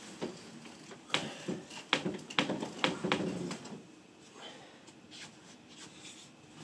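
Someone getting out of bed: bedclothes rustling with a cluster of sharp taps and knocks in the middle, then fainter footfalls on the floor.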